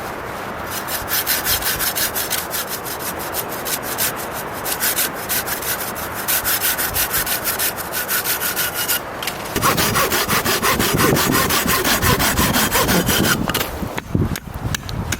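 A hand saw cutting through a piece of firewood with quick, even back-and-forth strokes. About two-thirds of the way in the strokes run together into a faster, continuous rasp, followed by a few sharp knocks near the end.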